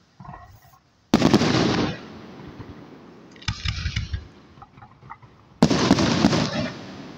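Aerial fireworks shells bursting: four blasts, a faint one at the start, a loud one about a second in, a smaller one midway and another loud one near the end, each trailing off slowly.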